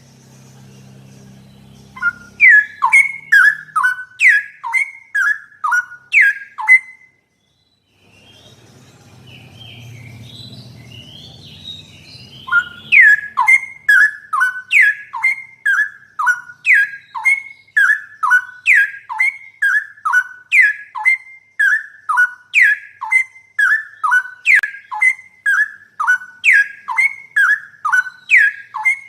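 Straw-headed bulbul (cucak rowo) calling: loud, short whistled notes, each sliding downward, repeated about two to three times a second. The calls pause for a few seconds in the first half, with a low hum in the gap.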